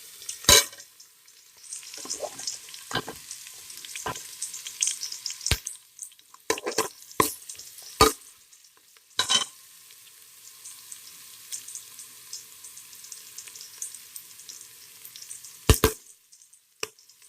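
Onion, chillies and ginger-garlic paste sizzling in hot oil, stirred with a spoon that knocks sharply against the pan about a dozen times, mostly in the first half. The sizzle drops away near the end.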